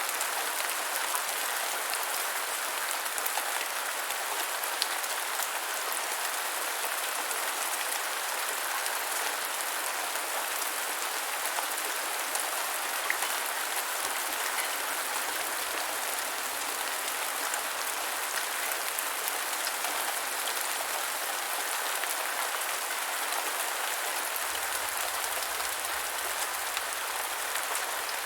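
Steady rain falling, a dense even hiss with many small drop ticks on hard surfaces.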